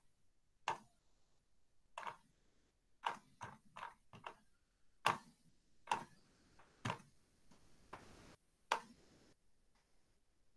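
Faint, irregular clicks from a computer mouse, about a dozen over nine seconds, some in quick pairs, as a chat history is scrolled up.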